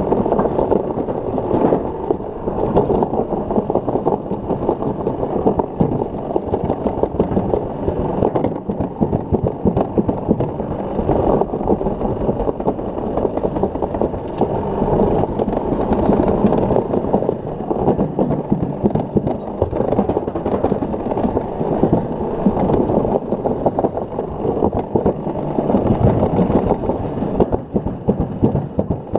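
Toboggan sled running down a stainless-steel trough at speed: a loud, steady rumble with frequent knocks and rattles from the sled on the metal track.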